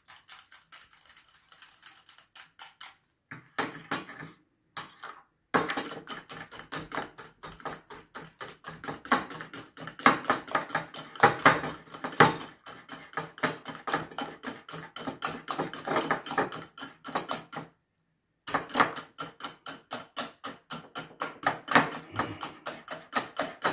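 Wire whisk beating egg white and oil in a small bowl: a rapid, steady run of ticks as the wires strike the bowl, softer for the first few seconds, with brief pauses about five and eighteen seconds in.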